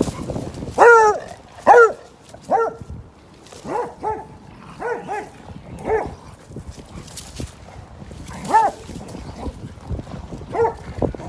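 A beagle barking repeatedly, about a dozen short, high barks at an uneven pace, with a pause of a couple of seconds past the middle.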